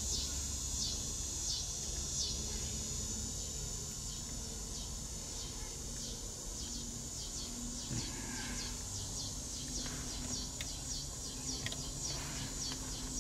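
Insects chirping: a regular series of short, high, falling chirps, about one to two a second, over a steady low hum.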